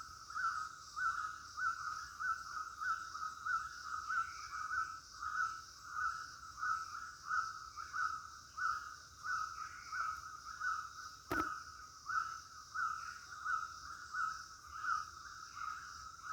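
Tropical rainforest ambience: an animal repeats a short call about twice a second over a steady high-pitched insect drone, with a single sharp click about eleven seconds in.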